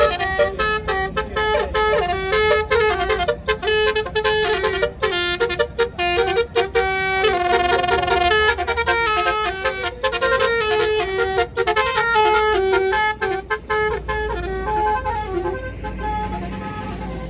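A tour bus's telolet basuri horn, a set of multi-tone air horns, playing a quick tune of short notes that jump between pitches. It fades out about fifteen seconds in, leaving a low rumble.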